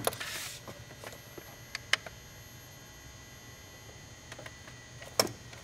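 Hands handling a catch can hose and its fitting in a car's engine bay: a short brushing rustle at the start, a couple of sharp clicks and taps about two seconds in and another near the end, over a faint steady low hum.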